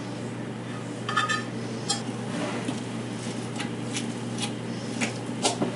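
A utensil clinking and scraping against a mixing bowl as chopped cooked chicken is stirred into a thick cream cheese and taco seasoning mixture: a scattering of sharp clicks over a steady low hum.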